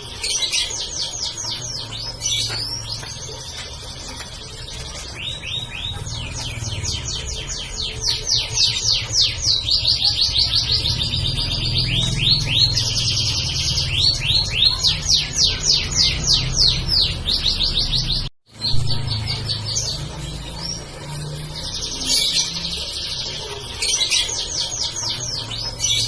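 Domestic canary singing a long run of fast, high-pitched trills and rolls, with repeated chirping phrases. The song breaks off for an instant about 18 seconds in, then carries on.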